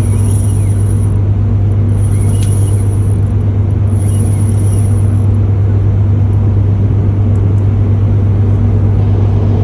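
Engine running with a steady low hum. Three brief, high, hissy bursts come in the first five seconds.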